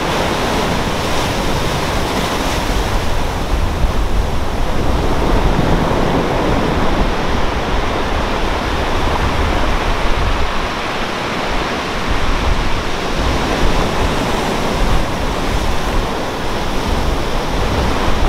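Rough sea surf breaking and washing in, a dense steady rush that swells a little with each wave, with wind rumbling on the microphone.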